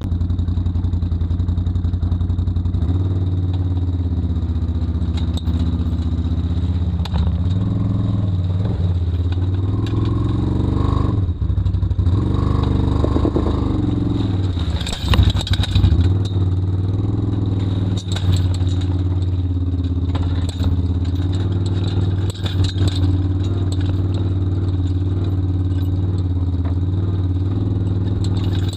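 Can-Am Outlander ATV engine running as the ATV drives over rough ground towing a forestry trailer, the engine speed rising and dipping a few times, with scattered rattles and knocks from the trailer and chassis.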